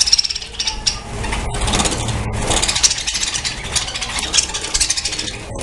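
A colony of budgerigars chattering and warbling together, many birds at once in a continuous busy chirping.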